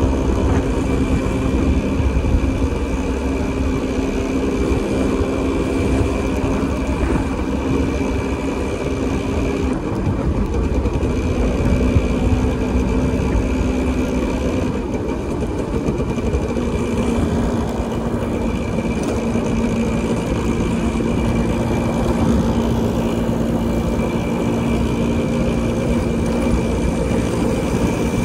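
Motorcycle engine running steadily on the move, with a heavy low rumble of road and traffic noise; the engine note drops a little about halfway through.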